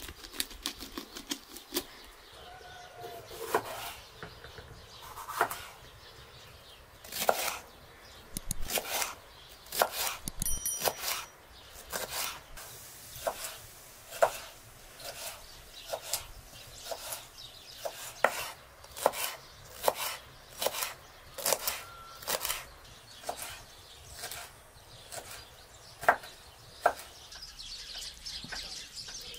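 Kitchen knife slicing bell peppers on a wooden cutting board: a series of sharp cuts, about one a second.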